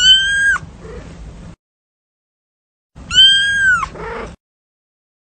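Young kitten meowing twice, two high-pitched cries about three seconds apart, each followed by a fainter short sound.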